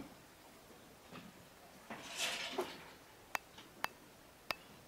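A brief hiss about two seconds in, followed by three sharp clinks about half a second apart, like small hard objects knocking together.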